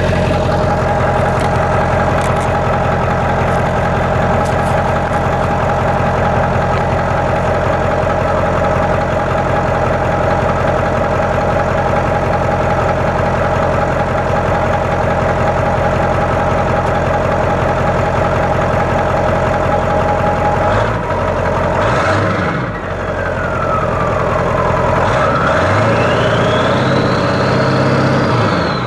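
Ford 7.3 L Power Stroke turbo-diesel V8 idling steadily, then revved twice near the end. Its turbo whistle falls as the revs drop after the first rev and climbs to a high pitch with the second.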